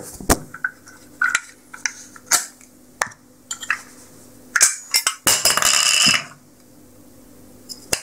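Handling of a brass gas regulator on a worktop as a fitting is taken off it: a series of sharp clinks and knocks, with a burst of rustling noise lasting under a second about five seconds in.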